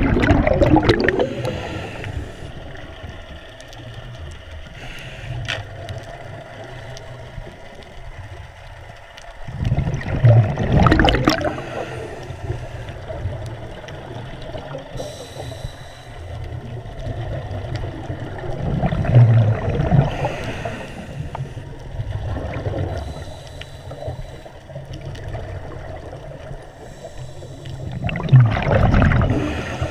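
A scuba diver breathing through a regulator underwater. A loud gurgling burst of exhaled bubbles comes about every nine seconds, four times in all, with steadier water noise and faint hissy inhalations between them.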